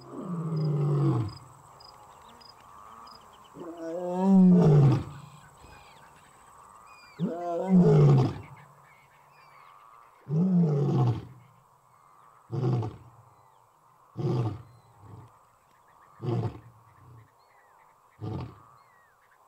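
Male African lion roaring: three long roars, each falling in pitch, followed by a string of shorter grunting roars about every two seconds that grow shorter and fainter toward the end.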